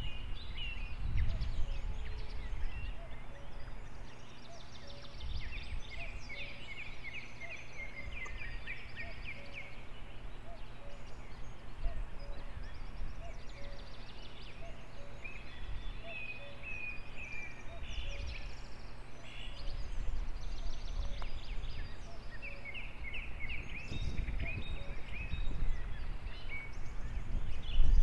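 Ravens calling: several quick runs of rapid, chattering high notes, each lasting a few seconds, over a low rumble of wind on the microphone.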